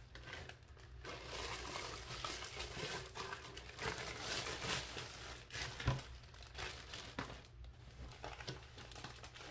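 Clear plastic kit packaging crinkling and rustling in irregular bursts as it is handled and opened, with a short sharp click about six seconds in.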